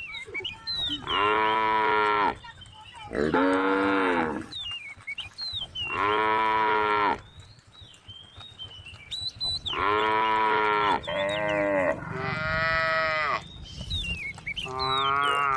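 Cows mooing: about six long, drawn-out calls one after another, some louder and deeper than others, with short quiet gaps between them.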